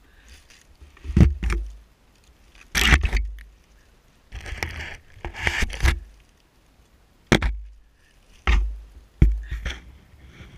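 A hand rustling and crackling through dry fallen leaves and fir twigs on the forest floor, in several short bursts with brief quiet between, many of them with a dull thump.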